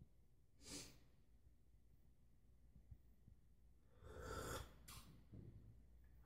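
Near silence broken by a few soft, breathy sounds from a person close to the microphone: a short one about a second in and a longer one about four seconds in.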